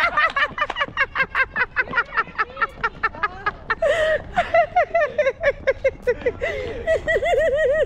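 Several people laughing hard in quick, repeated bursts, with a new run of laughter taking over about four seconds in.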